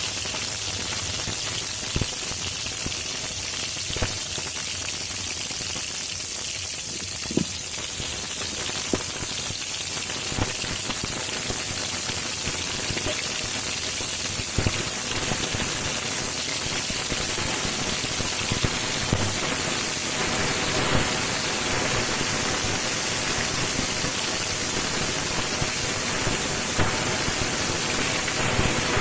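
Pieces of marinated catla fish sizzling as they fry in hot oil in an iron kadai: a steady frying hiss with a few short sharp clicks scattered through it.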